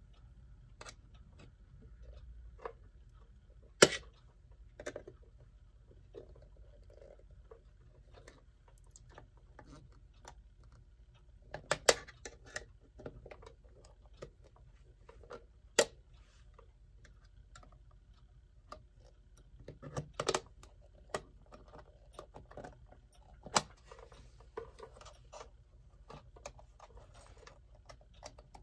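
Scattered sharp clicks, taps and scrapes of tools working at a stuck clock rim to pry it free, with a handful of louder snaps spread through.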